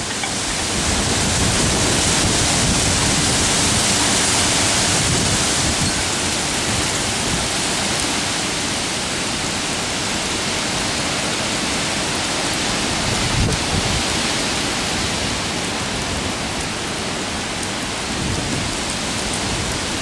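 High storm wind rushing through the trees with rain, a steady loud hiss, while gusts buffet the microphone in low, uneven rumbles.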